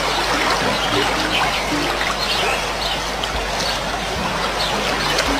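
A steady rushing noise like running water, with faint high chirps scattered over it.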